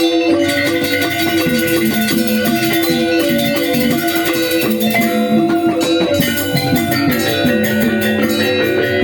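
Balinese gamelan angklung ensemble playing a tabuh kreasi piece: bronze metallophones ring in quick, dense strokes over sustained lower tones, with percussion running through.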